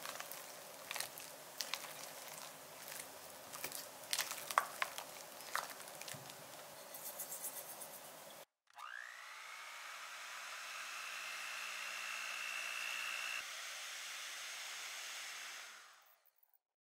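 A spatula folding and scraping thick batter in a glass bowl, with irregular clicks and squelches. About halfway, an electric hand mixer starts with a rising whine and runs steadily whipping cream, then fades out near the end.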